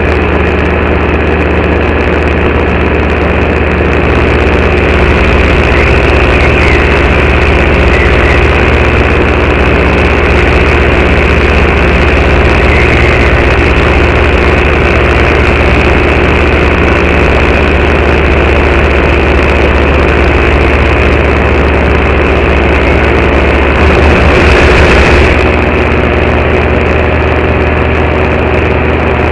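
Paramotor engine and propeller running steadily at cruising power, loud and close, with a brief louder surge about three-quarters of the way through.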